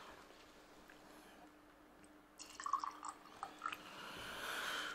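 A person taking a quiet sip of a mixed drink: a near-silent start, then small wet mouth clicks and slurps from about two and a half seconds in, and a soft rising hiss near the end.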